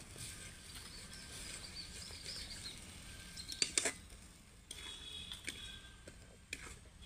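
Food frying in a wok with a low sizzle while a metal spatula stirs it, scraping and clinking against the pan, with the sharpest clinks a little past halfway. Birds chirp in the background.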